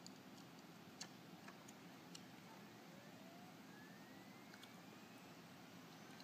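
Near silence: a faint steady hiss with a few faint ticks, and a faint rising whistle-like tone about halfway through.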